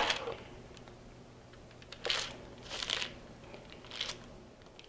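Three soft, brief rustles as a waxed-paper-lined sheet pan is handled and tilted, about two, three and four seconds in.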